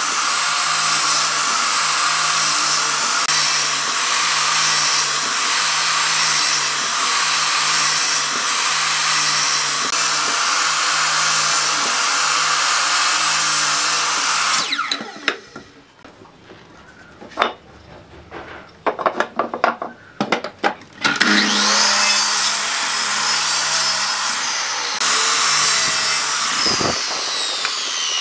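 Electric sliding compound miter saw running and crosscutting a pine board. About halfway through the motor stops and there are a few knocks, then the saw starts again with a rising whine and spins down with a falling whine near the end.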